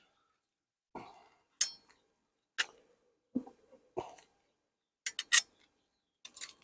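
Hive tool and wooden hive parts knocking and clinking as a beehive is worked open: about nine separate sharp knocks and clicks, three of them in quick succession about five seconds in.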